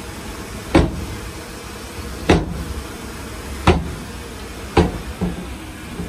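Earthmoving machinery running with a steady low rumble, broken by four loud sharp bangs spaced a second or so apart and a fainter fifth just after the last.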